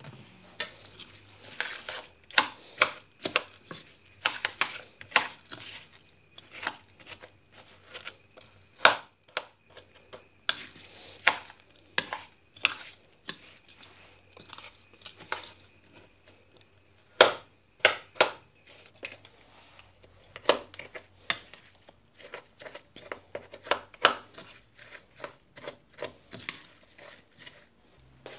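Metal spoon stirring a moist rice, chopped tomato and onion filling in a ceramic bowl, with irregular clinks and short scrapes of spoon against bowl.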